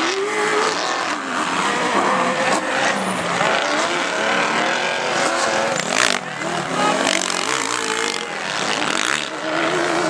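Off-road race vehicles, a desert buggy and a trophy truck, with their engines revving up and down as they are driven hard over sand. There is a sharp bang about six seconds in.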